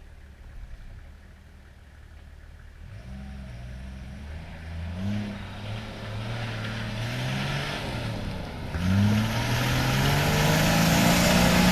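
A 4x4's engine with its differential locked takes a run-up at a slippery climb. After a low rumble for the first few seconds, the revs rise and fall repeatedly as it comes on, growing louder, and it is held at high revs near the end.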